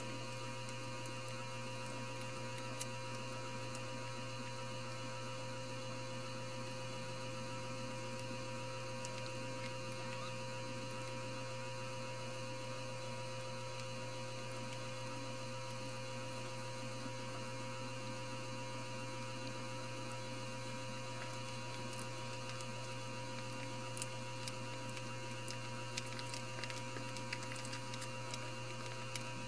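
Steady electrical hum with a constant low drone and a higher steady tone, unchanging throughout; a few faint ticks near the end.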